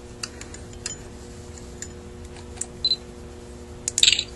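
Light clicks and taps of small metal carburetor parts being handled on a Rochester Quadrajet body, scattered and sparse, with a quick cluster of clicks near the end.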